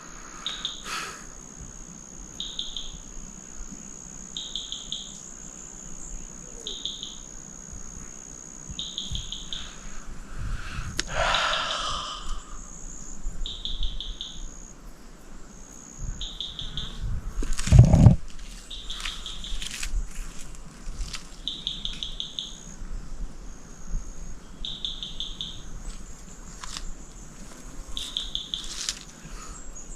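Insects in the undergrowth: a steady high trill with short chirps repeating about every two seconds. A brief noise comes about eleven seconds in, and a loud thump at about eighteen seconds.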